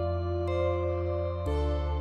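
Intro music of soft held chords, moving to a new chord about one and a half seconds in.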